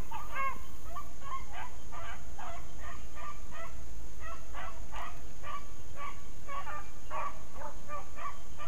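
A pack of beagles baying on a rabbit's scent trail, many short overlapping calls several a second without let-up: the hounds are running the rabbit.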